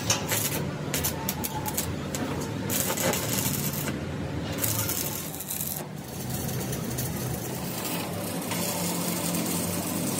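Factory machinery running with a steady low hum, with scattered metallic clinks and knocks throughout.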